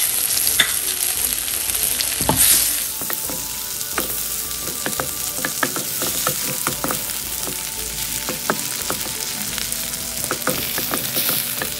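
Minced garlic, ginger and whole dried red chillies sizzling in hot oil and butter in a wok, stirred with a wooden spatula that scrapes the pan in many quick strokes. One louder knock comes about two seconds in.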